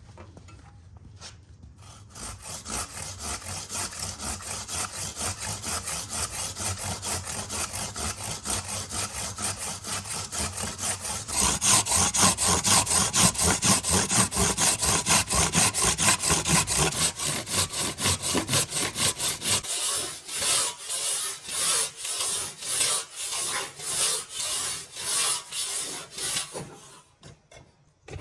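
A handmade handsaw cutting through timber in steady back-and-forth rasping strokes, about two a second. The strokes get louder part way through, slow down later, and stop shortly before the end.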